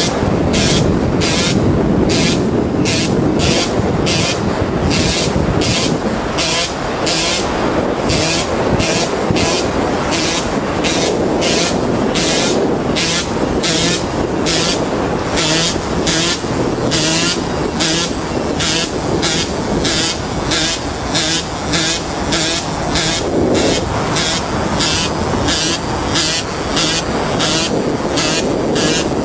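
A vehicle moving at road speed: a steady rush of road and wind noise, with a high hiss that pulses about twice a second.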